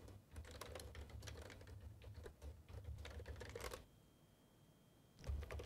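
Computer keyboard typing: a quick, faint run of key clicks for nearly four seconds, then a pause and one louder click near the end.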